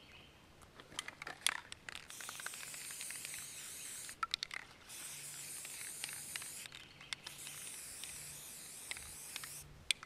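Aerosol can of Krylon paint-and-primer spray paint hissing in three long bursts, with short pauses between, as a base coat is sprayed onto a deer skull; a few light clicks come about a second in, before the first burst.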